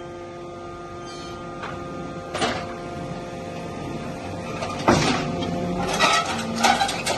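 Hydraulic metal baler running with a steady hum, with sharp metallic knocks and clanks as aluminium extrusions are pressed. The knocks come every second or so and grow louder and busier in the second half.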